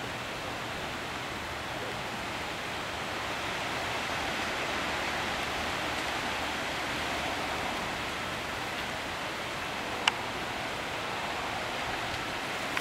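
Steady rain falling, an even hiss, with one sharp click near the end.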